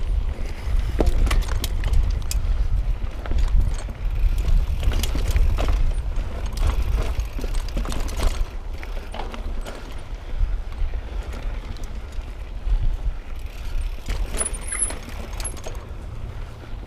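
Mountain bike riding over rough trail of roots and rocks: irregular clicks, knocks and rattles from the bike over the bumps, over a steady low rumble.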